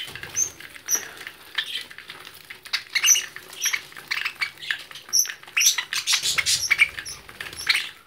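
Young budgerigars chirping in short high peeps while feeding together at a seed dish, over quick clicking and pattering from beaks pecking at the seed.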